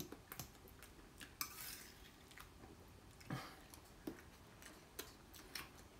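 Faint clinks of a metal fork against a plate as food is cut and eaten, a handful of separate light taps with a short scrape about one and a half seconds in.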